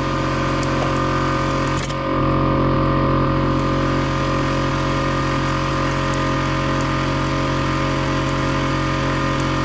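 Air compressor motor running steadily, a loud, even mechanical hum.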